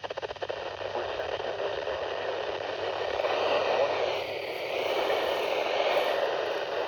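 Hiss of static from a weather-band FM radio receiver tuned to a weak NOAA Weather Radio signal that has faded into the noise, with a quick run of crackling clicks in the first second.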